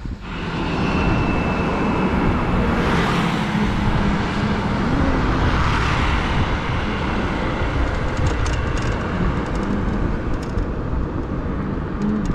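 Steady rumble of road traffic and wind while riding along a busy road, with motorbikes and cars running alongside.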